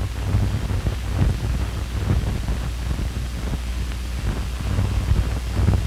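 Steady low hum and hiss of a worn old film soundtrack, with a few faint crackles and no clear sound from the scene.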